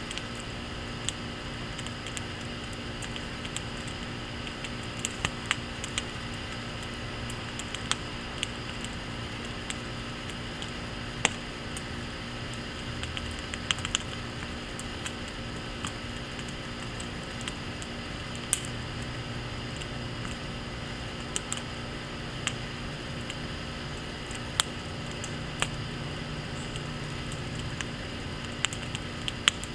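Wood fire of teepee-stacked firewood burning in a firepit, crackling steadily with irregular sharp snaps and pops, a few of them much louder than the rest.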